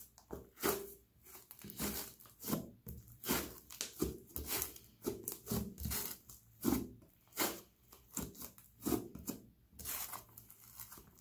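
Thick slime being folded and pressed by hand, giving short crackling pops as trapped air bursts out of it, about one or two a second.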